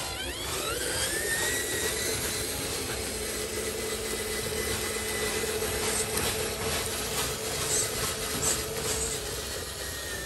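Electric drive motor and gearbox of a radio-controlled model dump truck whining as it drives, rising in pitch over the first second or two, then holding steady. Scattered clicks and crackles from about six seconds in.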